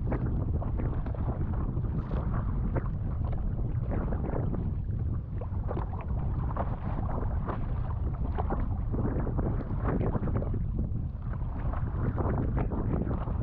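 Strong wind buffeting the action-camera microphone in a steady low rumble, with water splashing and slapping irregularly against a stand-up paddle board.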